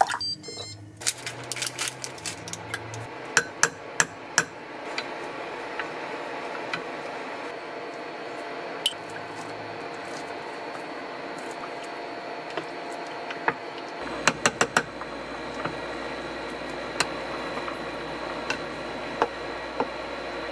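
Ingredients and utensils knocking against a ceramic pot of broth on an induction hob: a run of sharp clicks and taps in the first few seconds, then scattered taps as vegetables are dropped in and a wooden spoon stirs, over a steady hiss of the broth heating.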